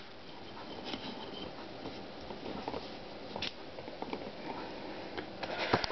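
Faint handling noise: light rustling, with a single sharp click about three and a half seconds in and a quick run of clicks near the end.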